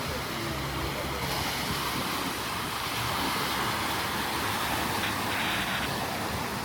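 Steady rushing noise of surf breaking on the shore, with no distinct events.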